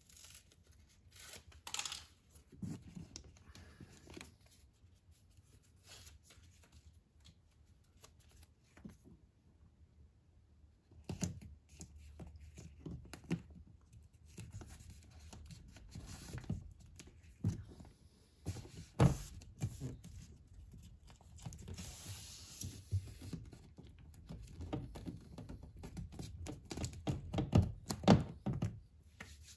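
Hands working on a stripped car rear door: scattered knocks and clicks with rubbing as the inner door-handle assembly and wiring harness are handled against the sheet-metal inner skin. The sounds come more often and louder in the second half.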